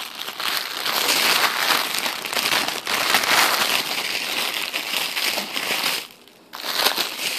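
Crinkly packaging of a hair bundle crackling and rustling as it is worked open with one hand, with a short pause about six seconds in.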